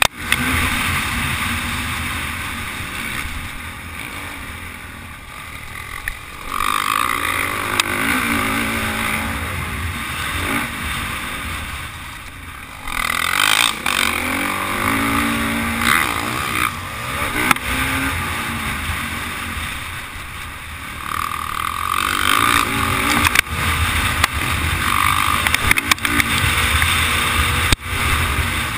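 Motocross bike's engine revving up and falling off again and again as it is ridden around a dirt track, heard from a camera mounted on the bike, with a steady rush of wind and track noise.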